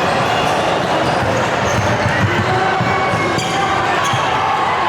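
Basketball game sounds in a gym: a ball bouncing on the hardwood court over a steady background of voices from players and spectators.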